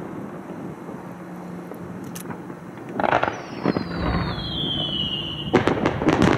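Aerial fireworks: crackling dies away, a burst goes off about three seconds in, then a high whistle glides down in pitch for about two seconds before a rapid cluster of sharp bangs and crackles near the end.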